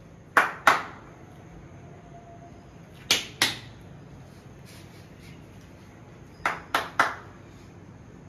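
Sharp hand claps in three quick groups: two, then two, then three.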